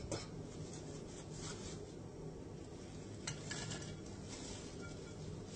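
Wire-mesh fryer basket scraping and rattling against the stainless steel fryer, with a sharp click a little over three seconds in followed by the rustle of fried french fries sliding out of the basket into a bowl.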